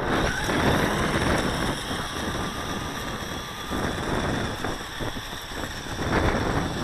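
Toy RC snowmobile's small electric motor running as it drives on its wheeled skis along concrete, under heavy buffeting noise across the microphone.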